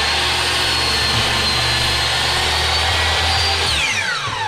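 Metabo HPT 10-inch compound miter saw's 15-amp motor running at full speed with a steady high whine. Near the end the trigger is released and the blade spins down in a falling whine.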